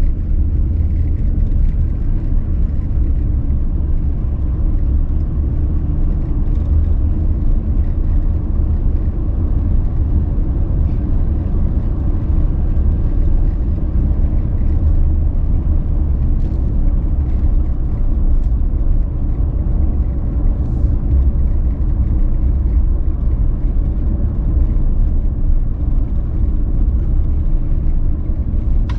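Pickup truck driving slowly along a park road: a steady low rumble of engine and tyre noise.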